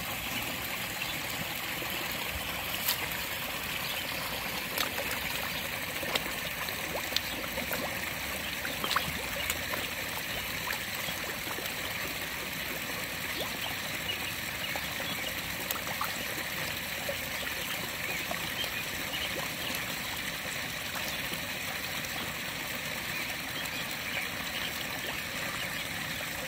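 Steady trickling of pond water, with scattered small pops and splashes at the surface as the koi feed, most of them in the first ten seconds or so.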